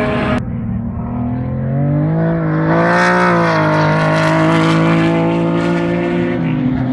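Ford Capri race car's engine as the car passes close by. The engine note rises and grows louder as it approaches, bends in pitch as the car goes past about three seconds in, then holds steady as it pulls away. The note drops shortly before the end.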